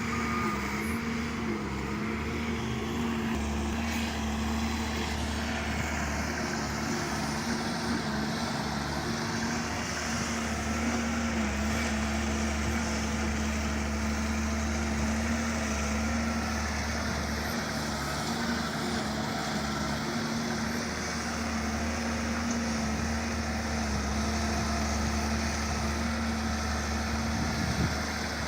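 Heavy diesel engine of earthmoving equipment running steadily at constant speed, its pitch wavering slightly. A single short knock sounds near the end.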